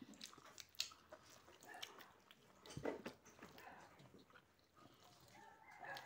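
Faint chewing of a person eating rice by hand, with scattered soft clicks, the sharpest about three seconds in.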